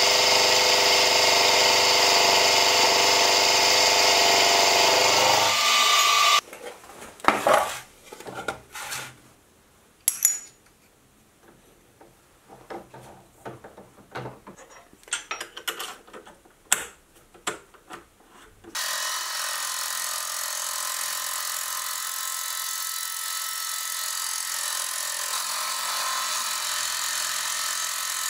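Benchtop milling machine's end mill cutting a hot-rolled steel block: steady motor and spindle whine with cutting noise, stopping about six seconds in. Scattered clicks and knocks follow as the steel block is handled and wiped in the vise. About two-thirds of the way through, the mill starts up again and runs steadily, more quietly.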